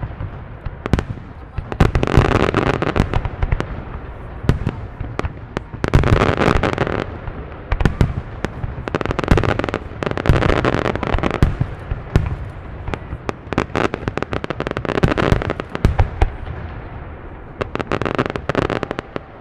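Aerial fireworks going off in rapid succession: many sharp booms and bangs, with several spells of dense crackle lasting about a second each.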